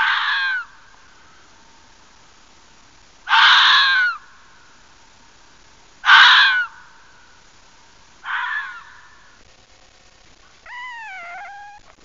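Red fox screaming: four short, harsh screams a few seconds apart, the fourth weaker than the others, then a quieter, clearer call that dips and rises in pitch near the end.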